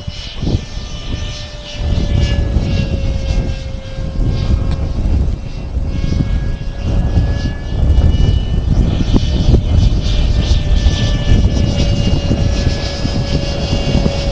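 Electric ducted-fan motor of a Hobby Lobby F9F Panther RC jet whining in flight, its pitch drifting slightly up and down as the throttle and airspeed change. Heavy wind buffets the microphone, growing much louder about two seconds in.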